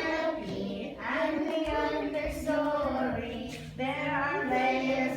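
Children and a woman singing a song together.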